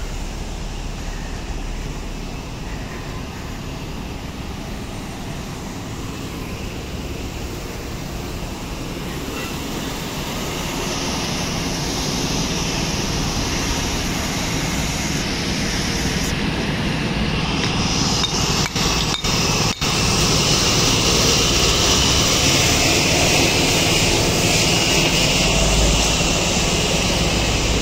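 Steady city street traffic noise heard while walking, growing louder about halfway through, with a brighter hiss joining in the second half and a few brief dropouts in the sound about two-thirds of the way through.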